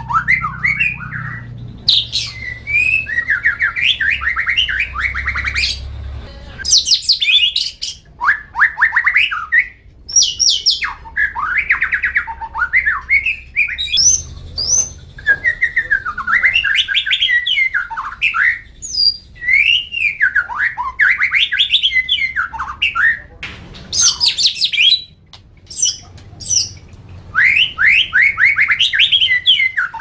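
A nine-month-old white-rumped shama (murai batu) singing in a cage: phrase after phrase of rapid trills and sweeping whistled notes, with short breaks between phrases.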